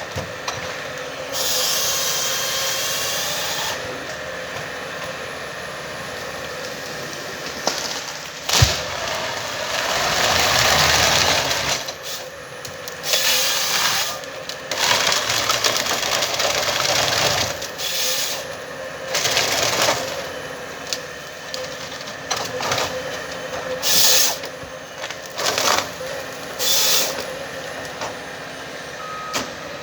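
Komatsu 931XC forest harvester running steadily while its C144 harvester head works timber. Repeated hissing bursts of a second or more and a sharp crack about eight and a half seconds in.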